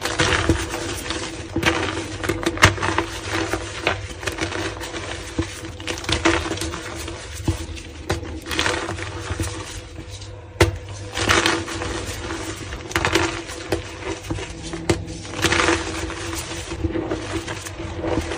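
Reformed gym chalk chunks crushed and crumbled by hand into a heap of chalk powder: repeated crunches and crumbles, in bursts every second or two, over a steady low hum.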